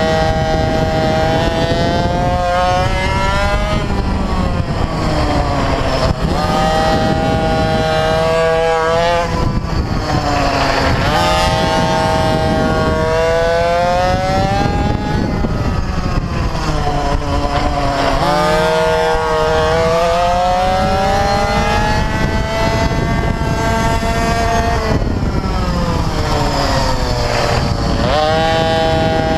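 Mini bike engine heard close up while racing, revving hard and pulling back: its pitch climbs on each straight and falls away into each corner, over and over. Low wind rumble on the microphone runs beneath it.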